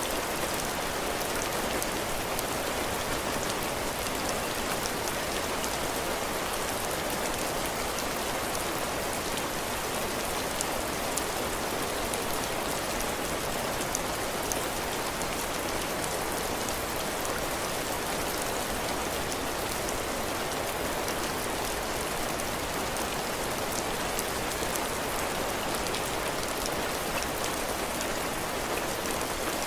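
Heavy rain falling steadily on a cabin porch roof and the ground, a continuous hiss with many individual drops ticking through it.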